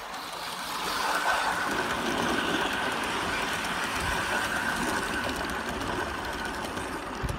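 Large-scale model steam locomotive and its coaches rolling past close by, wheels running on the rails with a steady high whine. It grows louder about a second in as the train reaches the microphone and eases off near the end as the last coaches go by.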